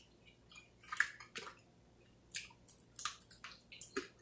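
Wet chewing and lip smacking while eating chicken wings: irregular short clicks and squelches, several a second, with gaps in between.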